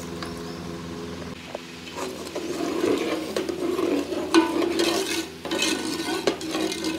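A metal slotted spoon stirring chicken and potatoes in boiling broth in a metal pot, starting about two seconds in. The liquid sloshes and the spoon scrapes and clinks against the pot. A low steady hum runs underneath at first.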